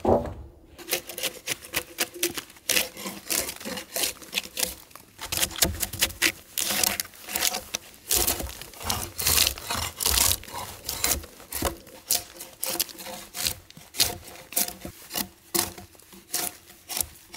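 Hand tool scraping on wood in rapid, irregular back-and-forth strokes.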